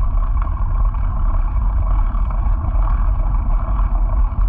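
Steady low wind buffeting and rumble on a GoPro's microphone while riding a bike along a dirt path.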